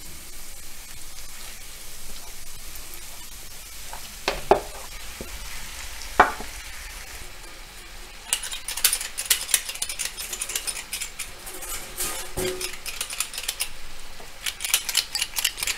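Minced beef and pork sizzling in a hot frying pan of softened vegetables, with a few knocks of a wooden spoon against the plate and pan in the first half. From about halfway the crackling of the fat grows denser and louder.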